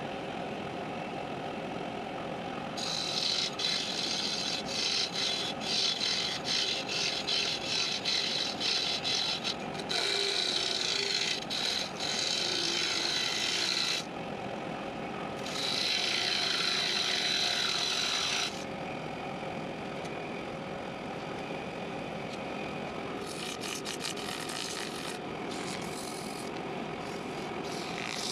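Wood lathe running steadily while a thin parting tool cuts into the spinning wooden blank, giving several spells of loud, hissing scraping. The first spell pulses at about two strokes a second; the later ones are steadier.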